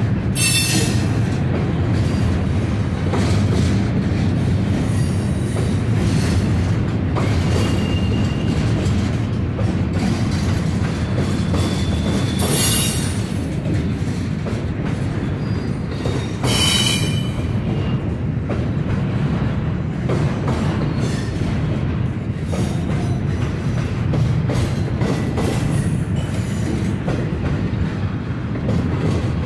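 Norfolk Southern freight train rolling past with a steady heavy rumble of railcars on the track. Brief high wheel squeals cut in about a second in, about 13 seconds in and about 17 seconds in.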